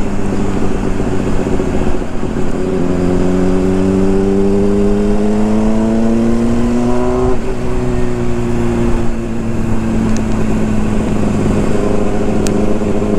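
Honda CBR600RR's inline-four engine under way in traffic. Its pitch climbs smoothly for a few seconds as the bike accelerates, drops suddenly about halfway through, then holds and eases slightly lower. Wind and road noise run underneath.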